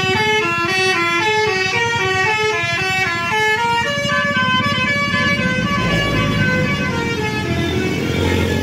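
Telolet basuri bus horn playing a quick tune of short stepped notes over the rumble of a diesel bus engine; the notes fade about halfway through.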